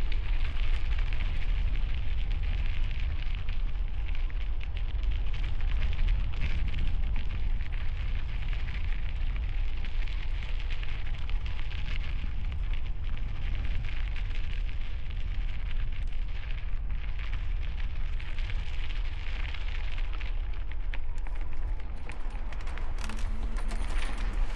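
Strong wind buffeting the microphone of a helmet-mounted Insta360 X5 camera while riding a bicycle, a steady low rumble under a dense crackling hiss.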